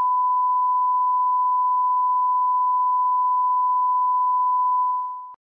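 A 1 kHz colour-bar test tone: one steady, high, single-pitched beep that holds level and fades out near the end.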